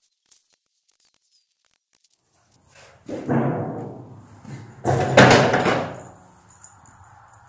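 A red ribbed steel siding sheet flexing and rumbling as it is handled and laid down on lumber: two loud metallic wobbles with a deep ring, about three and five seconds in, each dying away within a second.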